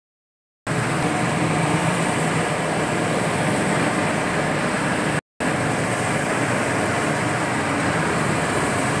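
Terrazzo floor grinding machine running steadily, its motor and grinding head working the wet chip floor. The sound starts suddenly just under a second in and drops out for a moment about five seconds in.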